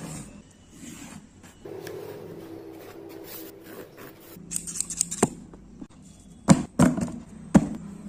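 Scissors cutting corrugated cardboard: faint handling and scratching at first, then a series of sharp snips and crunches in the second half.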